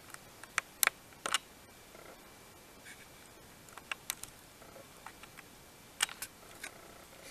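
Irregular sharp clicks and ticks in small clusters, about a second in, again around four seconds and again around six seconds, over a faint steady hiss.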